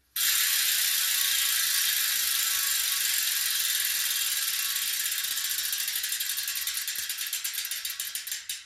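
Two mountain-bike rear hubs freewheeling together, a Hope Pro 4 (4 pawls, 44 engagement points) and an Industry Nine 101 (6 pawls, 90 engagement points). It starts suddenly as a loud, dense, high-pitched freehub buzz. Near the end it slows into separate clicks as the wheels coast down.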